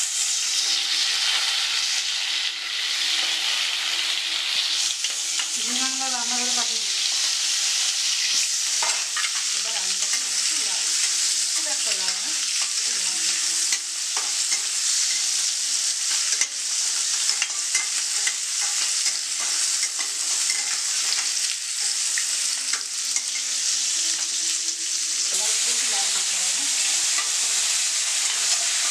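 Boiled potato pieces frying in hot mustard oil in a stainless steel kadai: a steady sizzle, with a metal spatula scraping and tapping the pan now and then as the pieces are turned.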